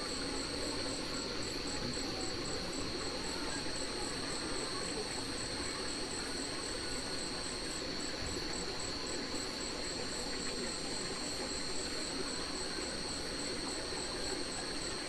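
Chorus of night insects: one steady high trill, and a second high chirp pulsing about three times a second.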